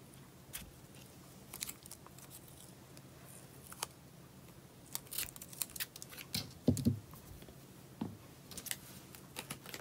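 Quiet, scattered clicks, ticks and light rustles of washi tape rolls and paper being handled on a tabletop, with a couple of duller knocks about seven and eight seconds in as rolls are set down.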